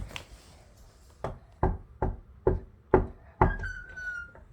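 Six sharp knocks, about two a second, then a high squeak that falls slightly in pitch and lasts under a second.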